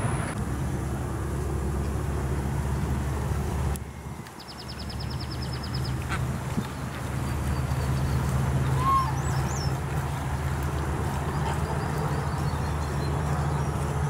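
Domestic ducks and geese quacking and calling over a steady low hum. About four to six seconds in there is a quick high-pitched ticking series.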